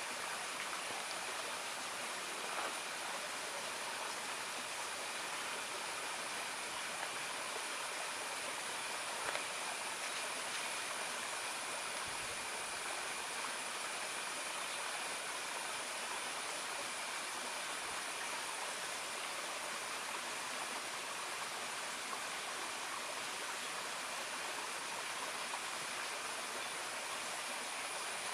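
Steady outdoor ambience: an even rushing hiss with two faint, continuous high-pitched tones running through it, and no elephant calls or splashing standing out.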